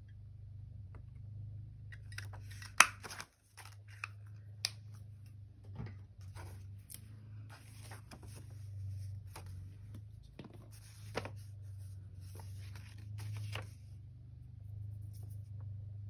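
A handheld paper notch punch snapping shut through paper, with one sharp snap about three seconds in and a few lighter clicks after. Paper rustles as the folded paper pocket is handled, over a low steady hum.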